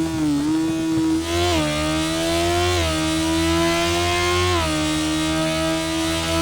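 Sport motorcycle engine accelerating hard through the gears: the engine note climbs, then drops sharply at each of three upshifts, and after the last one it pulls on, rising slowly.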